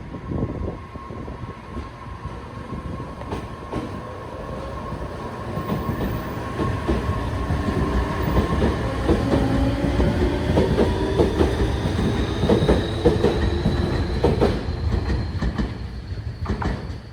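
Tobu 60000 series electric train pulling away, its traction motor whine rising steadily in pitch as it accelerates, with wheels clacking over rail joints. The sound builds louder and then drops away sharply near the end.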